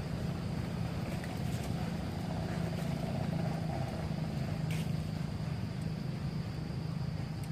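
Steady low hum, like a motor running nearby, with a constant thin high-pitched drone above it and a faint click about five seconds in.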